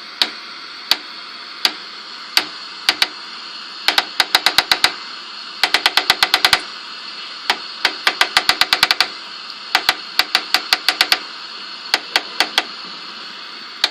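Detented channel-selector knob of a 1985 RCA television clicking as it is turned, sometimes one click at a time and sometimes in quick runs of several clicks a second, over a steady hiss of TV static from an untuned set.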